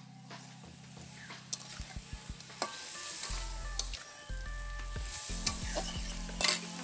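Meat and potato pieces sizzling in oil in a metal karai while a metal spatula stirs and scrapes through them, with a few sharp knocks of the spatula on the pan, the loudest near the end.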